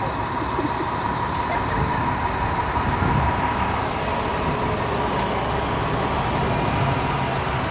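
Steady low rumble of a heavy vehicle: a fire ladder truck's engine running as the truck drives slowly into position.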